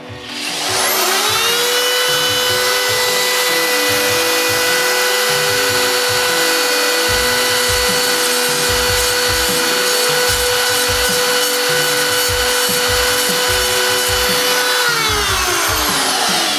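High-speed rotary tool spinning up, running at a steady high whine for about fourteen seconds, then winding down near the end, used for taking material off a rifle part.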